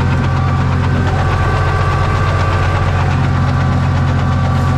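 Farm tractor's diesel engine running steadily, with a knocking clatter, while pulling a plough.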